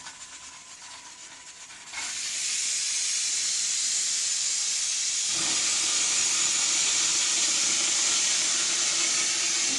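A loud, steady hiss that starts suddenly about two seconds in and holds; a faint low hum joins it about halfway through.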